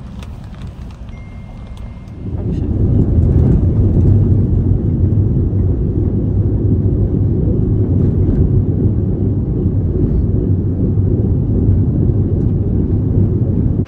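Passenger van driving, with low road noise. About two seconds in, a loud, steady low rush of wind and road noise sets in and holds.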